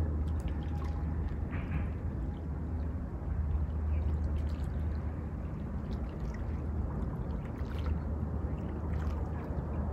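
Lake water lapping gently at a pebble shore, with faint small trickles and ticks among the stones over a steady low rumble.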